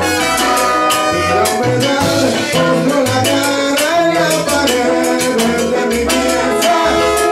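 Live Latin dance band in full swing: trombones playing held notes over a walking bass line, with a shaker and cymbals keeping the beat and a male lead singer at the microphone.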